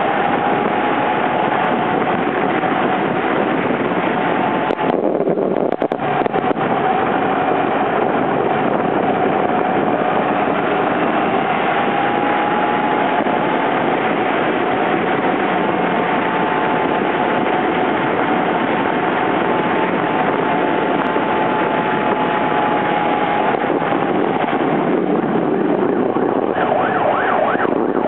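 Heavy wind and road noise from travelling at speed in traffic, over a steady engine drone that wavers only a little in pitch. Near the end a fast-pulsing, siren-like tone comes in.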